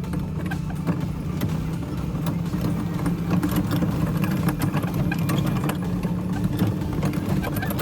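Engine running steadily at a low hum, with many sharp rattling clicks over it.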